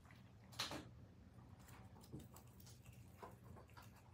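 Prairie dog nibbling basil leaves: faint, scattered clicks and ticks over a near-silent room, with one sharper click about half a second in.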